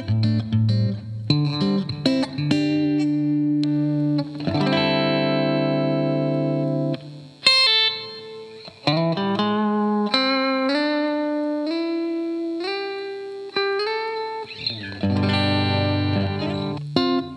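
Squier Affinity Telecaster electric guitar being played: picked notes and chords. A chord is left ringing for a couple of seconds about five seconds in, then comes a run of single notes stepping through a melody, and another ringing chord near the end.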